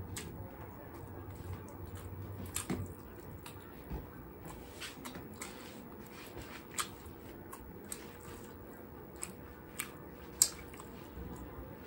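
Close-up eating sounds of roast chicken being chewed, with soft wet mouth noises and scattered sharp clicks, the loudest one near the end.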